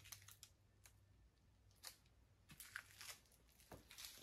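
Near silence: a faint steady low hum with scattered faint clicks and crackles, a few of them stronger about two and a half to four seconds in.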